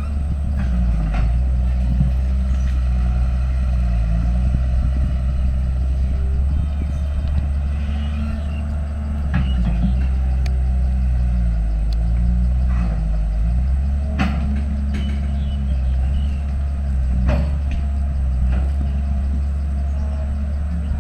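Heavy earthmoving machine's diesel engine running under changing load, its pitch rising and falling repeatedly, with a few sharp knocks.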